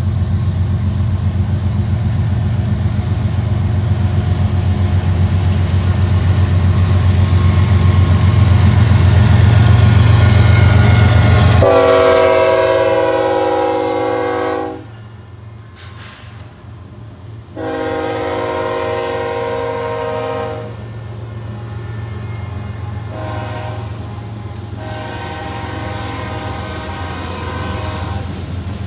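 BNSF freight train's diesel locomotives approaching with a steady low rumble that grows louder. Then the lead locomotive's multi-note air horn sounds the grade-crossing signal, long, long, short, long, as the locomotives pass. The rumble of the train continues underneath.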